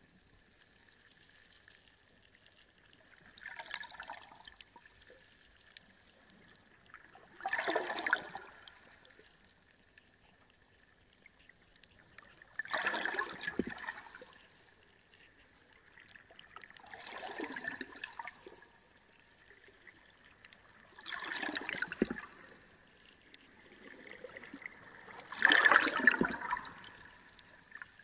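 Reef aquarium water surging and splashing in six pulses about a second long, roughly every four to five seconds, the last the loudest, over a steady thin tone.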